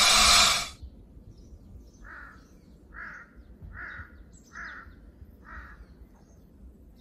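A loud hiss that cuts off within the first second, then a bird calling five times, about one call every 0.8 s, over faint chirping from other birds.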